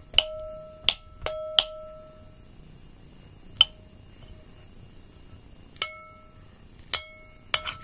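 Metal spoon clinking against a ceramic bowl while mashing banana pieces: about nine irregular sharp taps, several ringing on briefly, bunched in the first two seconds and again near the end.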